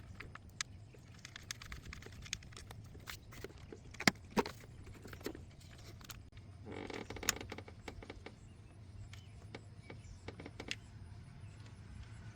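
Scattered light metallic clicks and knocks of hands and tools handling engine parts while a new VVT solenoid is fitted into the cylinder head. Two sharper knocks come about four seconds in, and a short scraping rustle about seven seconds in.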